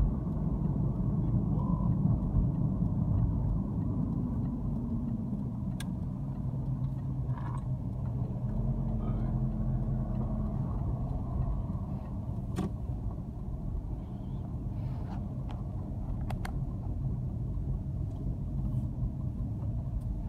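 Steady engine hum and road rumble heard from inside a moving car's cabin, with a few short faint clicks.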